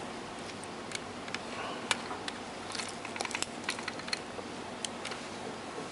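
Faint scattered ticks and small crackles over a steady hiss, most of them bunched together in the middle, from a soldering iron and solder wire working the pins of an LM1876 amplifier IC while its cracked cold solder joints are redone.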